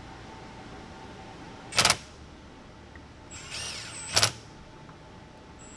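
Screws going into a transmission valve body: a small power screwdriver whirs briefly, and there are two loud, sharp clicks about two and a half seconds apart, the second right after the whir.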